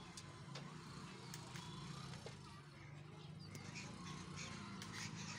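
Flat bean pods being picked by hand from a trellised vine: a scatter of small snaps and leaf rustles over a faint steady low hum.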